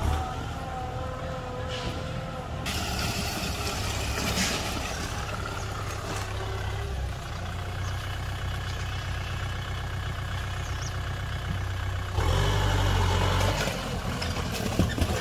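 Kubota M6040 tractor's diesel engine running as the tractor moves across the ground. It gets louder for a couple of seconds about twelve seconds in.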